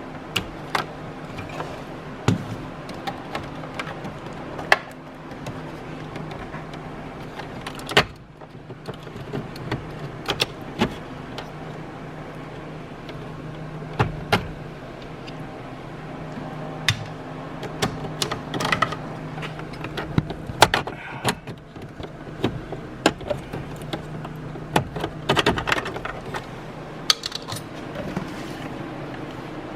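Irregular clicks, knocks and light rattles of hand tools and plastic dash trim being worked loose inside a car, over a steady low hum.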